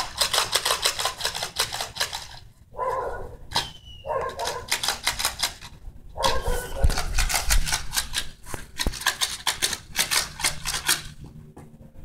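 Fast, irregular clicking and scratching, with a dog barking a few times in between.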